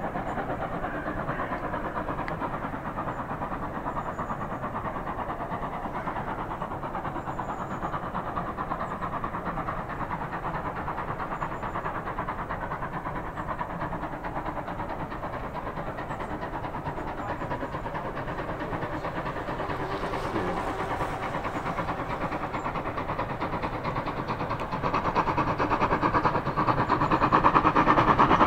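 Steam tank locomotive approaching under power, its exhaust and running noise steady and then growing clearly louder near the end as it nears.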